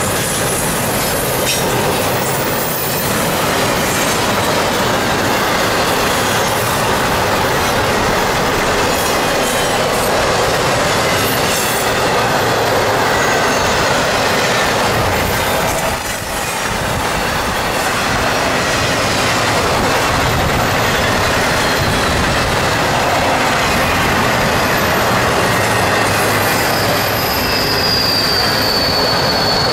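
Intermodal freight train's container well cars rolling past: a steady, loud rumble and rattle of steel wheels on the rails. A thin, high wheel squeal comes in near the end.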